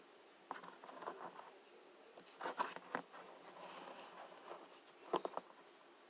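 Light clicks, taps and rustles of plastic action figures being handled and posed on a surface, in small clusters: one about half a second in, a louder one around two and a half to three seconds in, and a sharp tap about five seconds in.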